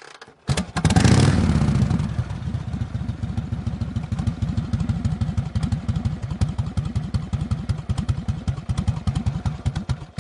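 Motorcycle engine coming in loud about half a second in, then settling into an idle with an even, rapid beat of about six pulses a second.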